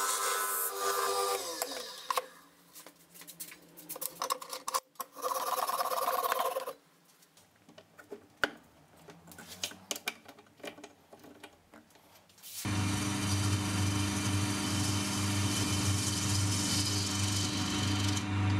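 Wood lathe running with a tool cutting the spinning wooden blank, then its motor winds down with a falling whine. Next come about ten quieter seconds of scattered handling knocks and clicks. About two-thirds of the way in the lathe is running again, with a steady low hum, while a gouge turns the wood.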